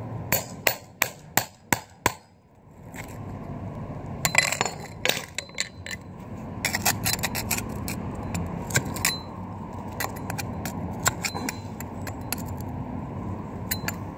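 A metal hand tool scraping and clicking against concrete as old filler is dug out of the joints between slabs: a quick run of sharp clicks near the start, then irregular scrapes and knocks, over a steady low background rumble.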